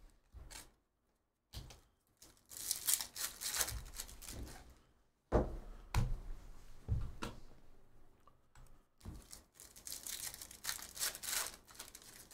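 Cards being flipped and slid against each other, with a foil pack wrapper crinkling and tearing in two stretches of crackly rustling. Several soft thumps come around the middle.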